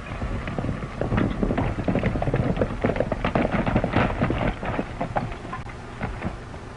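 Hoofbeats of several horses galloping on dry dirt and pulling up, a dense rapid clatter that thins out after about five seconds. A steady low hum runs underneath.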